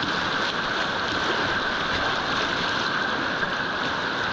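Creek whitewater rushing: a steady, even sound of moving water with no breaks.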